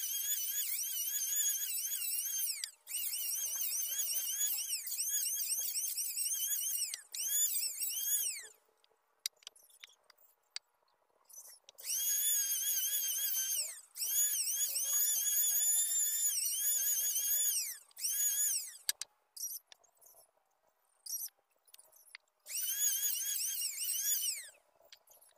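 Electric hand planer shaving a wooden plank in a series of passes: a high whine whose pitch sags as the blades bite into the wood and recovers between strokes. There are short breaks between passes and two pauses of about three seconds, one in the middle and one near the end.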